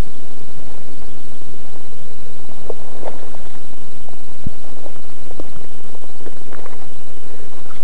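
A few scattered knocks and rustles from moving about on a stony, leafy riverbank, over a steady background noise.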